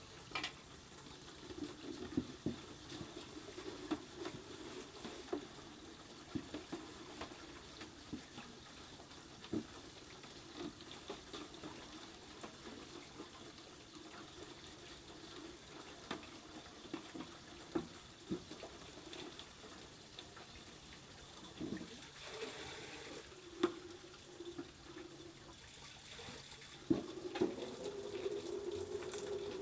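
Water running from an outdoor tap and splashing, with scattered small knocks and clinks, louder in the last few seconds.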